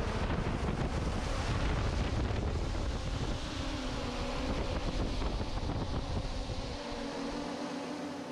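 A heavy DIY cinelifter FPV multirotor taking off at high power: its propeller wash rushes loudly over the ground microphone. A steady motor-and-propeller hum then comes through as it climbs away, and the rush eases and fades.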